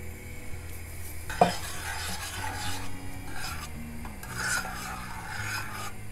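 A metal spoon stirs rice and millet flakes in hot milk in a stainless steel pot, with irregular scraping and swishing strokes. A sharp metallic clink rings out about a second and a half in.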